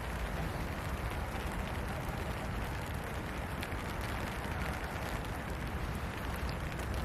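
Steady rain falling, an even hiss with a strong low rumble underneath.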